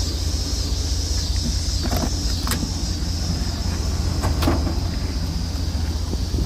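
A steady low rumble with a steady high hiss over it, broken by a few sharp clicks and knocks, the last and loudest near the end.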